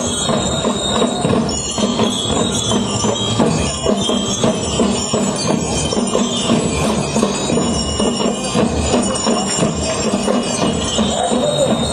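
School marching band playing, with bright ringing bell tones (bell lyres) over a steady beat.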